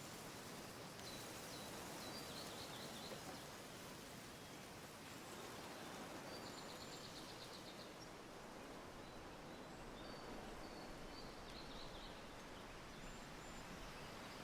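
Faint steady background hiss with small birds chirping in the distance now and then, including a quick trill about halfway through.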